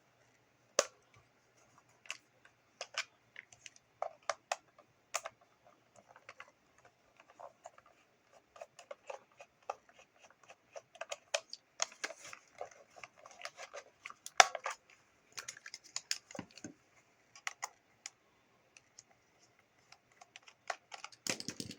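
Irregular clicks and taps of hand work on the plastic case of a Realistic TRC-207 handheld CB radio: a screwdriver working out the case screws and the small screws being handled and set down. The tapping is busiest in the middle, with one sharper click just after it.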